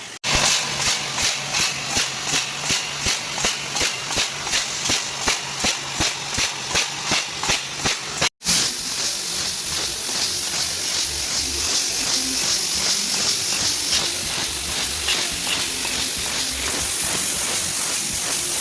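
3000 W CNC fiber laser cutting machine at work: the cutting head's assist gas hisses in even pulses about two and a half times a second over a low hum. After a sudden break about eight seconds in, it becomes a continuous hiss.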